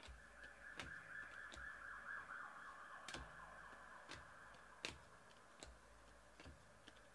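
Near silence, broken by scattered sharp clicks and taps of trading cards and packs being handled. Under them runs a faint wavering high tone, like a distant siren, which fades after the first few seconds.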